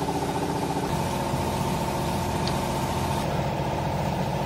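An electric machine motor and pump running steadily with a fast pulsing hum and a few steady tones, which shift slightly about a second in.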